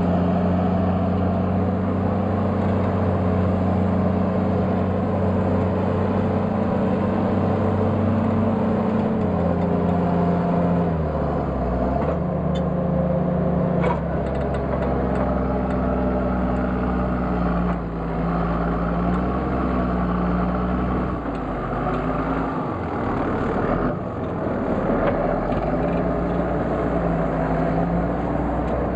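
Farm tractor's diesel engine running under heavy draught, pulling a deep subsoiler shank through the ground about 1.25 m down. The engine note drops about ten seconds in and wavers up and down afterwards as the load changes.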